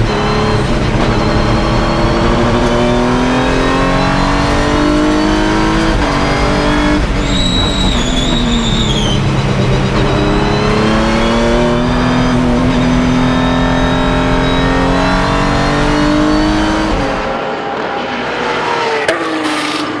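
Race car engine heard from inside the cockpit, revving up and dropping back repeatedly as it shifts gears and brakes. A brief high squeal sounds about seven to nine seconds in, and near the end the engine sound drops away.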